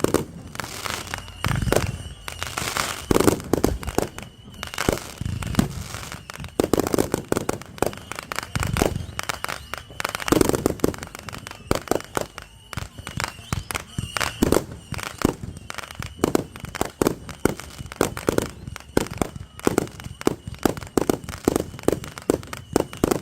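Fireworks going off in a continuous barrage of sharp cracks and pops, several a second, with louder clusters of bangs and deeper booms.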